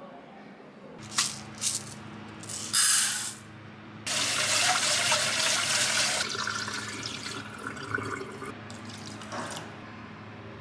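Kitchen tap running into a rice cooker's inner pot while rice is washed by hand, the water rushing loudest for about two seconds and then swishing more quietly as the rice is stirred, stopping shortly before the end. A few short knocks and a brief splash come first.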